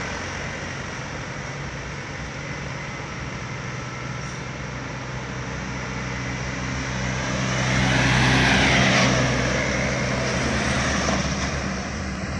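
Road traffic on a hill road: a bus engine growing louder as the bus approaches and goes past about eight to nine seconds in, with its tyre noise, then fading, over the steady hum of other vehicles' engines.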